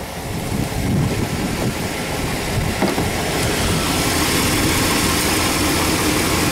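1996 GMC pickup's gasoline engine idling steadily with the hood open, smooth and even; it grows louder over the first second as the sound is taken closer into the engine bay, then holds steady.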